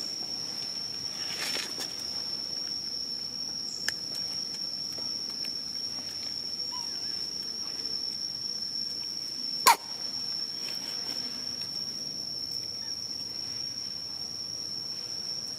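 Steady high-pitched insect drone, one unbroken tone, with a sharp click a little under ten seconds in.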